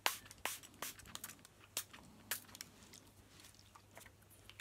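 A string of irregular sharp clicks and light crackles, most of them in the first two and a half seconds and a couple more near the end: small objects being handled close by.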